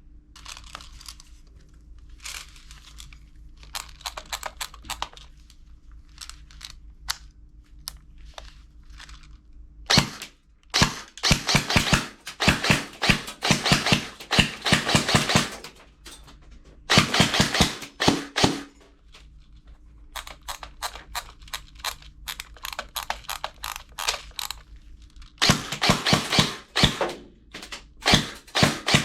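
Plastic toy guns being worked, giving sharp clicks and snaps: scattered at first, then in dense rapid runs of a few seconds each, about a third of the way in, past the middle, and near the end. A low steady hum runs underneath.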